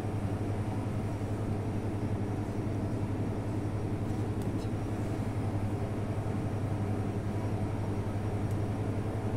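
Steady low mechanical hum with a constant drone, unchanging throughout.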